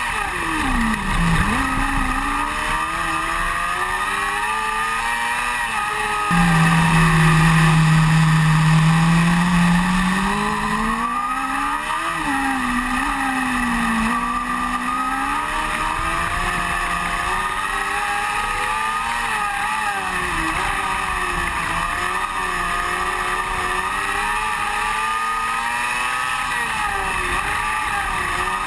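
Onboard sound of an open-wheel dirt-track race car's engine at racing speed, its pitch rising and falling over and over as it lifts for the turns and pulls down the straights. A louder, lower drone cuts in suddenly about six seconds in and fades away by about ten seconds.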